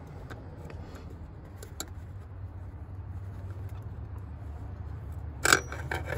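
Faint scattered clicks of needle-nose pliers and a plastic electrical connector knocking against engine parts as a knock sensor connector is worked into place, with a sharp clack about five and a half seconds in and a few quick clicks after it. A steady low hum runs underneath.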